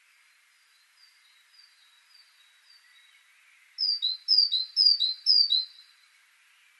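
Great tit singing: faint repeated two-note phrases for the first three seconds, then four loud two-note phrases about half a second apart, each a high note dropping to a lower one.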